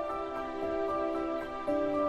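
Relaxing background music: a slow melody of held notes that step to a new pitch about every half second.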